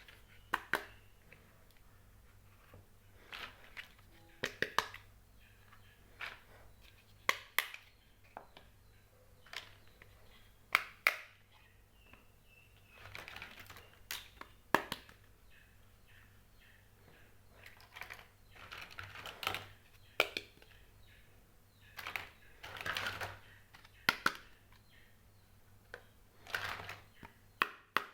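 Small toy kitchen pieces being handled and set down: sharp clicks and taps at irregular intervals, with a few longer stretches of rustling.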